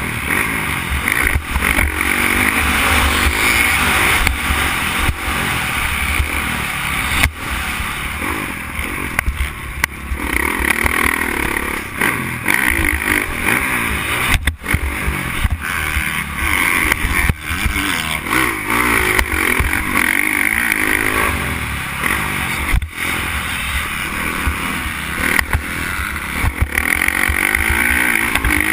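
Dirt bike engine ridden hard on a motocross track, heard from a helmet camera: its note rises and falls as the throttle opens and closes, with wind rush on the microphone and a few brief cuts in the sound.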